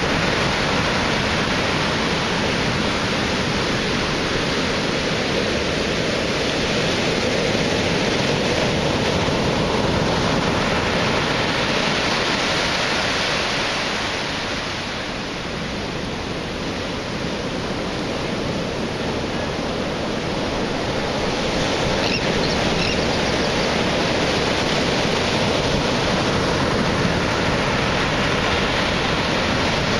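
Heavy storm surf, 7 to 10 foot waves thrown up by a distant hurricane, breaking in and around a pier's pilings: a continuous rushing wash of water that eases a little about halfway through and then builds again.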